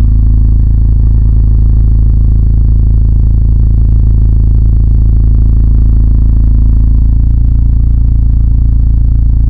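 Very loud, distorted, steady low drone with a few steady tones above it, changing slightly about seven seconds in.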